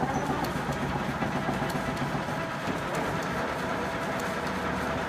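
50-inch Bullard Spiral Drive vertical turret lathe running, its table and four-jaw chuck turning with a steady mechanical hum and faint ticking; the chuck runs nice and quiet.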